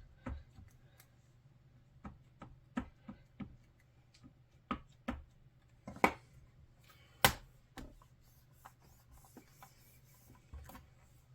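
Light taps and clicks of a rubber stamp being re-inked and pressed down onto card a second time, with two sharp knocks about six and seven seconds in.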